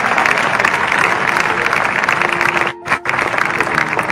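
Large crowd applauding, a dense patter of many hands clapping, briefly breaking off about three seconds in.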